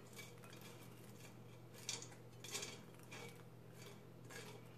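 Faint rustle of popped kettle corn being tipped and brushed out of a stainless steel Instant Pot inner pot into a bowl, with a few light metal clinks and scrapes from about two seconds in.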